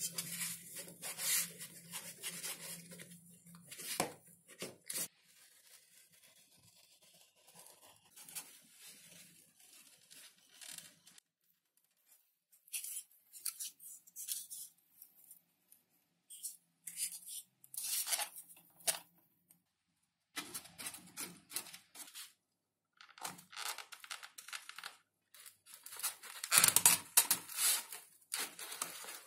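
Handwork on a foam-and-balsa model plane: irregular bursts of tearing and rubbing, in short clips broken by sudden cuts to silence.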